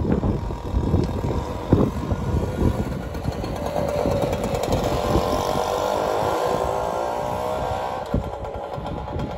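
BSA Ariel 3 moped's 49cc two-stroke engine buzzing under way as it rides past. The engine note is strongest about halfway through and drops back near the end as the moped draws away.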